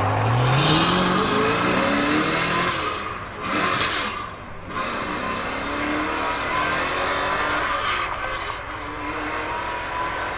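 Supercar engine revving hard as the car accelerates away, its pitch climbing steeply over the first second or so, then running on at steadier revs amid dense engine noise.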